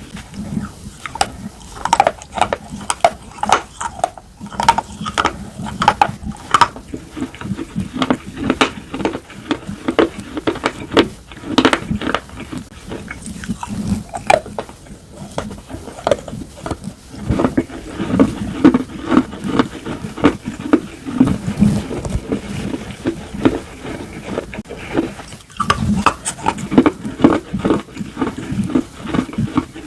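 Close-miked biting and chewing of slate pencils and slate bar: many sharp, irregular crunches and cracks with gritty chewing between them.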